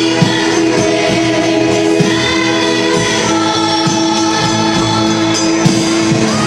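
A group of voices singing a religious song over instrumental accompaniment with a steady beat.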